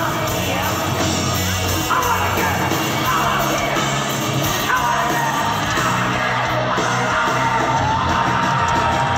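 Live hard rock band playing loud, with a male lead singer singing and yelling in long held notes over it, heard from within the concert audience.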